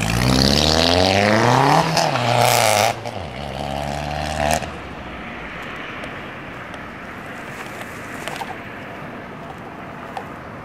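Modified Audi A4 1.8T turbo four-cylinder, straight-piped with headers and gutted cats, accelerating hard past, its exhaust note rising in pitch for about two seconds. The sound drops sharply in level near three seconds in, cuts off about four and a half seconds in, and a quieter steady traffic hum remains.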